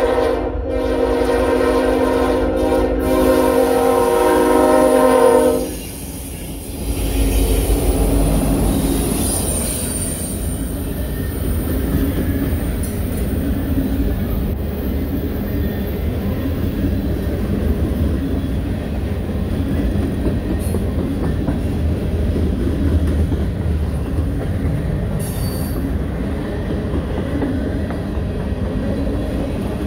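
Norfolk Southern freight locomotive's air horn blowing a loud, steady chord for about the first five seconds. Then the locomotives rumble past, followed by a string of covered hopper cars rolling by with steady wheel clatter and some squeal from the wheels.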